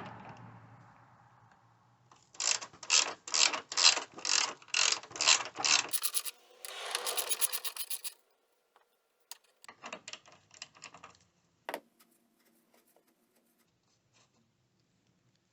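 Ratchet wrench with a 10 mm socket clicking as it loosens the battery hold-down bolt: a steady run of about nine clicks, a couple a second. A scraping rasp follows, then a few lighter clicks and a single knock.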